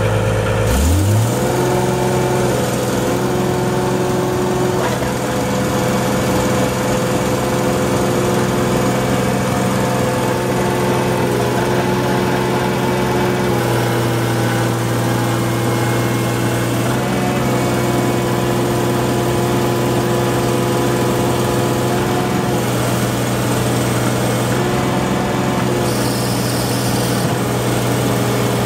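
Skid steer loader's engine revving up about a second in, then running steadily at raised speed with a few brief slight dips.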